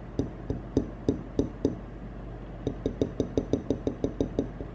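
Finger tapping on the metal body of an ASUS ROG Spotlight logo projector, giving sharp metallic clicks: about six spaced taps, then after a short pause a quicker run of about a dozen. The taps show the housing is solid metal, not plastic.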